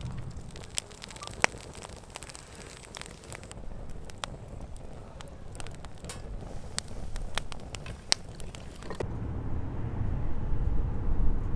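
Irregular sharp crackles and pops over a low rumble. About nine seconds in, the rumble gets louder.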